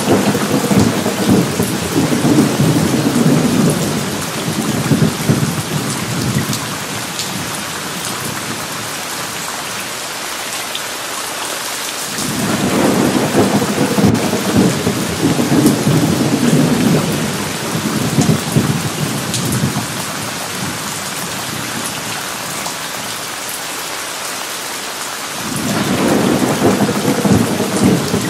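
Thunderstorm: steady rain with rolling thunder. A roll of thunder is already going at the start and dies away over the first few seconds, another builds about halfway through and lasts several seconds, and a third begins near the end.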